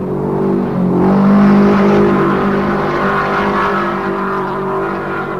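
Several speedcar racing engines running hard on a dirt track, their pitch falling and rising again about a second in as a car lifts and accelerates, loudest as it passes.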